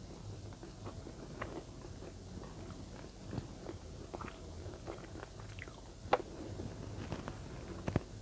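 Close-miked chewing of a mouthful of rice and adobo: soft, wet mouth clicks scattered through, with one sharper click about six seconds in.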